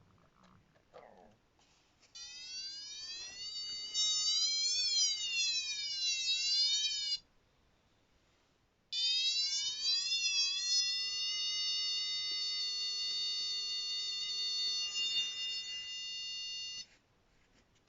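PeakTech 3435 cable finder's receiver giving its buzzy signal tone, which glides up and down in pitch for about five seconds, breaks off, then sounds again about two seconds later, rises and holds steady before cutting off suddenly near the end. The pitch shifts with the strength of the traced signal as the probe moves.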